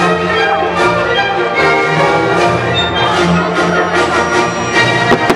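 Loud orchestral show music led by brass, with fireworks popping several times over it.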